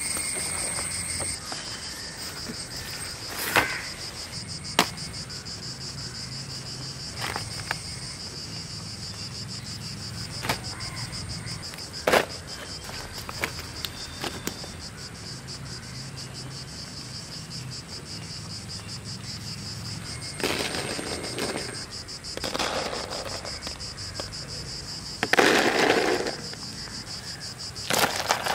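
A steady, high-pitched, fast-pulsing insect chirr in forest undergrowth. Over it come scattered light taps and clicks, then louder rustling bursts as fruit and rock sugar are laid out by hand on banana leaves. The loudest rustle comes a few seconds before the end.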